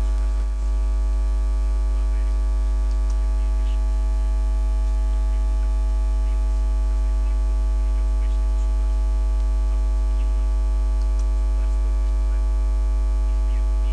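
Steady electrical mains hum, a low buzz with a row of unchanging overtones above it, running without change.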